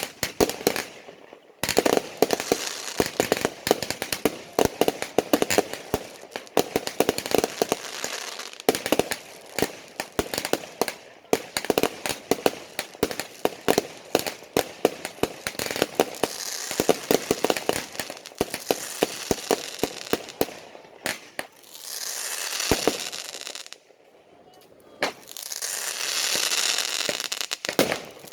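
Fireworks going off in dense, rapid runs of sharp cracks and bangs, broken by two stretches of steady hissing in the last third.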